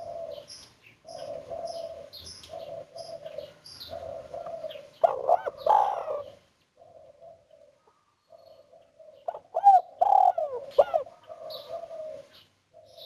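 Spotted dove cooing: a run of short, low coos broken by two louder, swooping phrases about five and ten seconds in. Small birds chirp at a high pitch over the first few seconds.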